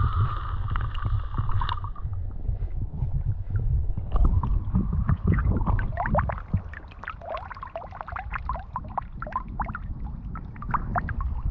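Sea water sloshing and bubbling around a camera held at or under the surface: a heavy low rumble, with many short gurgling bubble sounds from about four seconds in.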